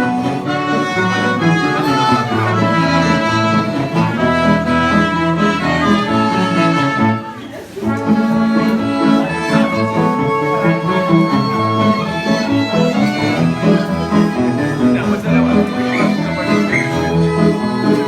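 Live dance-band music with accordion and fiddle over a plucked string accompaniment. The music drops out briefly about halfway through, then carries on.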